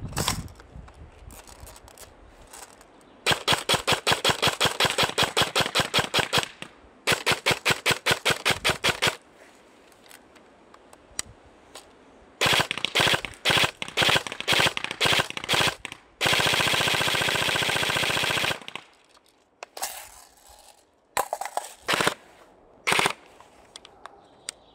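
Airsoft rifles firing on full auto in several bursts of rapid, evenly spaced shots. In one longer burst the shots come so fast they blur into a continuous buzz. A few single shots follow near the end.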